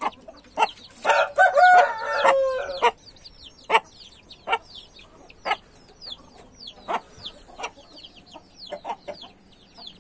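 A rooster crows once, starting about a second in and lasting some two seconds, over the constant high, falling peeps of chicks around their mother hen. Short clucks come and go throughout.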